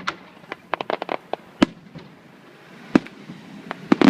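Aerial fireworks shells bursting: scattered sharp bangs, with a quick run of them about a second in, single loud reports later, and a denser run beginning near the end.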